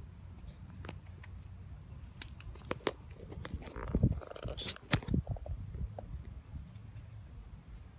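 Handling noise from a camera being set into a stand: scattered clicks, knocks and rubbing, loudest around the middle, over a low steady rumble.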